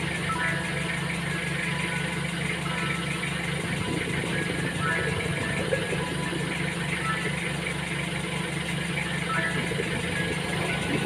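Vehicle engine running steadily, a low pulsing hum.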